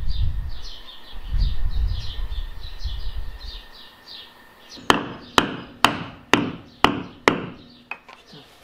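Six sharp hammer strikes, about two a second, tapping a drain plug into its hole in a boat's transom. Before them, a low rumble with birds chirping for the first few seconds.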